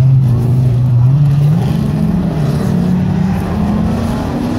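Autocross race car engine running hard on the track, holding a steady note and then revving higher about a second and a half in, its pitch climbing in steps with a brief drop along the way.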